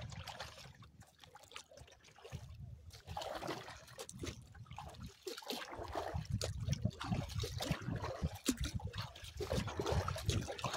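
Water splashing and trickling along a Pelican Argo 100XR kayak's hull as it is paddled at speed, with a low rumble underneath. The sound gets louder about halfway through.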